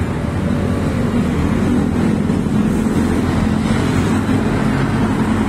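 Steady low rumble of road traffic, with no distinct single vehicle passing.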